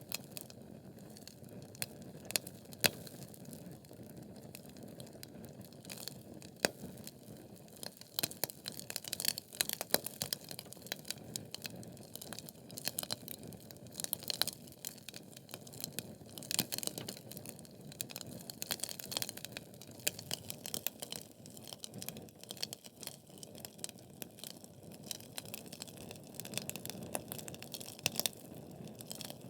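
Wood fire of burning logs crackling continuously, with many small irregular snaps and scattered louder pops over a low steady rush of flame.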